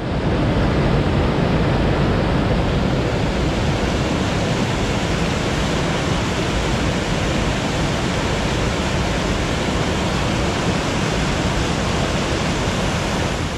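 Whitewater of a mountain creek tumbling down a steep rocky cascade: a loud, steady rush of water.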